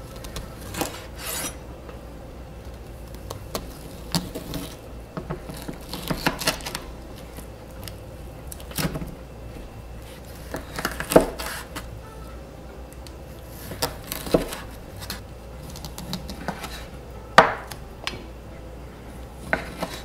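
Chef's knife cutting a slab of bacon into chunks on a wooden cutting board: irregular knocks of the blade meeting the board, with the rasp of the blade sawing through the meat and rind between them. Two knocks, about 11 and 17 seconds in, are louder than the rest.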